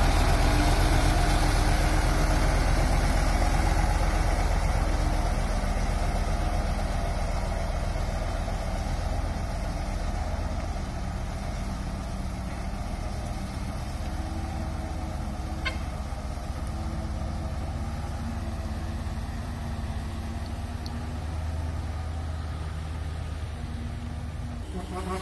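Loaded dump truck's diesel engine running as the truck pulls away up a muddy dirt road, its low steady rumble fading as it moves off.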